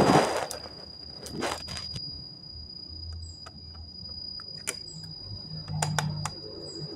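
Handling noise from reassembling an opened Acer notebook: two loud rustles at the start, then scattered light clicks and taps as parts are fitted back in. A steady high-pitched tone runs underneath.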